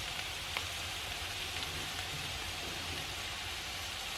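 Potatoes and artichokes sizzling steadily in oil in a frying pan as they sauté.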